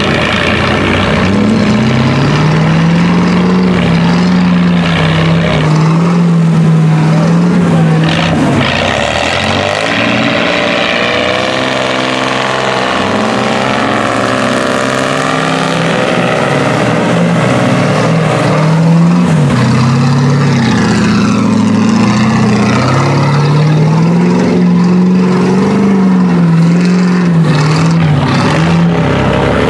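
Off-road 4x4's engine revving hard as it churns through deep mud. The engine note climbs, holds and drops again several times.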